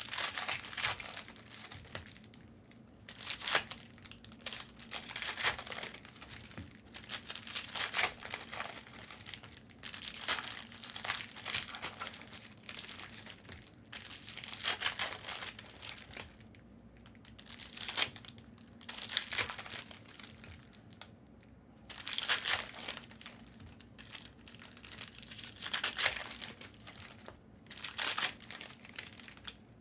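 Foil trading-card pack wrappers crinkling and tearing as card packs are ripped open by hand, in repeated bursts of a second or two with short pauses between.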